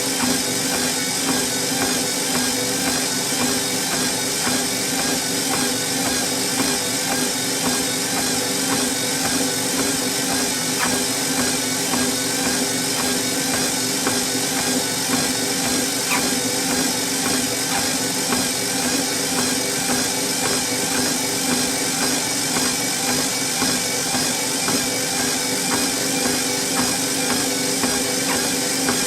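Motorized treadmill running steadily, its motor humming and belt whirring, with a regular rhythm of walking footsteps on the belt.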